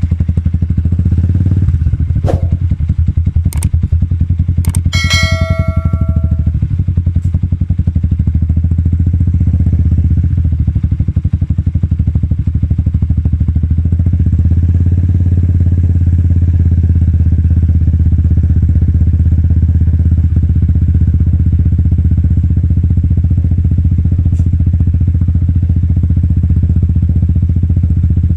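Yamaha Sniper 150's single-cylinder four-stroke engine idling steadily through a semi-open aftermarket power pipe with its silencer removed, giving a deep, rapid exhaust pulse. A few sharp clicks sound in the first five seconds, and a brief metallic ding rings at about five seconds.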